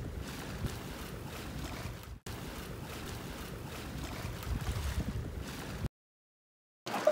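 Wind buffeting the microphone over the rush of sea water along a sailing yacht's hull, with gusty low rumbles. The sound cuts out briefly about two seconds in and goes silent for about a second near the end.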